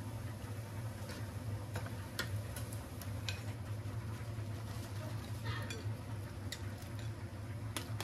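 Scattered light clicks and taps of kitchenware being handled, at irregular intervals over a steady low hum.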